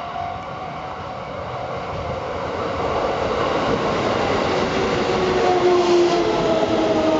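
Shin-Keisei 8800 series electric train pulling into a station: wheel-on-rail rumble growing louder as it nears, with electric motor whine sliding down in pitch as it brakes.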